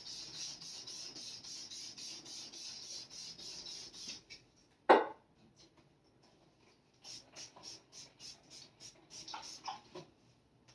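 Tarot cards being shuffled by hand, a quick, even rasping of card on card at about four strokes a second, then broken rasping later on. A single sharp knock about five seconds in is the loudest sound.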